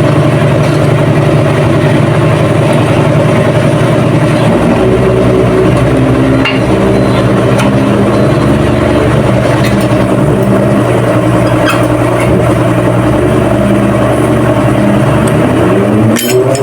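An engine running steadily nearby, its pitch rising near the end, with a few light clicks over it.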